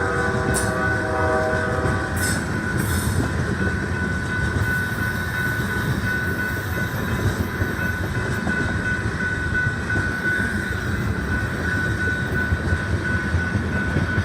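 Diesel freight locomotive's air horn sounding a chord that cuts off about two seconds in, then a long manifest freight train rolling past with a steady, loud rumble of steel wheels on rail.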